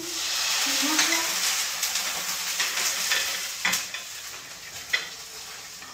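Hot frying pan sizzling: a loud hiss that starts suddenly and fades over several seconds, with a couple of light clanks of the pan.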